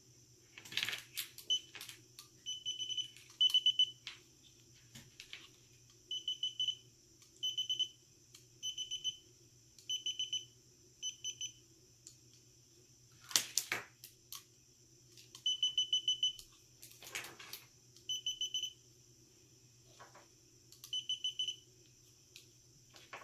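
Gardner Bender holiday light tester beeping in short trains of rapid high beeps, repeated about once a second with pauses, while it is worked along a Christmas light string. A few clicks and knocks of handling fall between the beeps.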